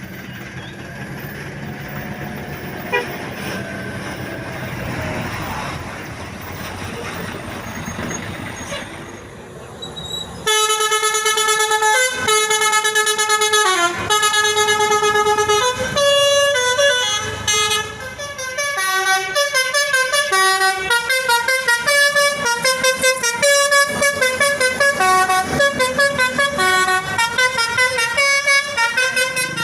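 A tour bus's Basuri telolet horn, a multi-tone musical horn, playing a melody. It starts abruptly after about ten seconds of traffic noise, with longer held notes at first and then short, quick notes.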